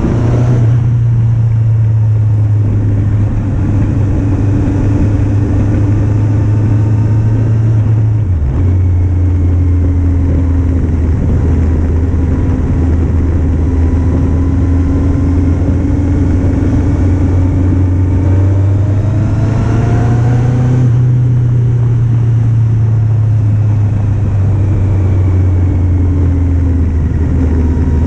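Kawasaki Z750 motorcycle's 748 cc inline-four engine running on the move under a steady rush of noise. The engine note drops suddenly about eight seconds in and rises again as it accelerates about twenty seconds in.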